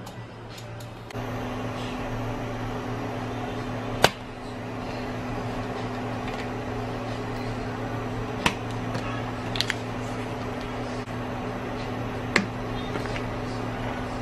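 A kitchen appliance switches on about a second in and hums steadily. Over the hum come a few sharp clicks and taps from a fork and a plastic cheese wrapper as a cheese slice is unwrapped.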